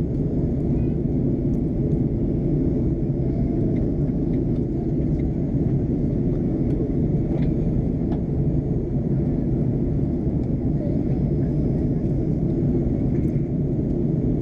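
Steady low rumble of cabin noise inside an Airbus A330-243 airliner in flight: the drone of its Rolls-Royce Trent 700 engines and the rush of airflow over the fuselage, heard at a window seat over the wing.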